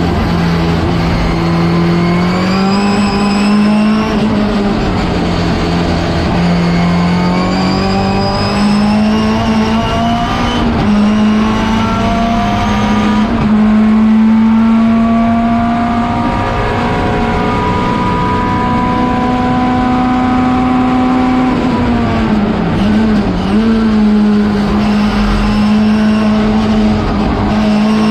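Turbocharged four-cylinder engine of a Schnitzer BMW 320 Turbo Group 5 race car, heard from inside the cockpit, revving up and settling as it is driven hard through the gears, with a brief wavering drop in revs about three quarters of the way through as it slows for a corner.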